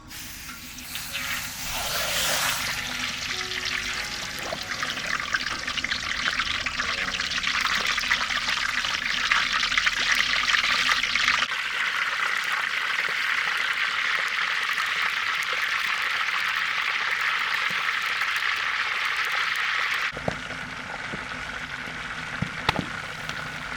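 Pork leg deep-frying in hot oil, a dense steady sizzle with fine crackling. The sizzle changes in character about halfway through and again near the end.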